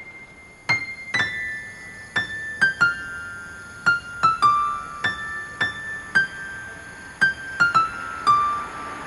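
Background music: a slow piano melody of single high notes, each struck and left to ring away.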